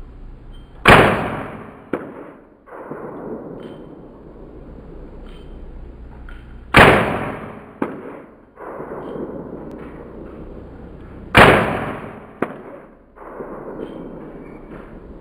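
Three shots from a Colt M4 .22 LR rifle, about five seconds apart. Each dies away over about a second and is followed about a second later by a short sharp click.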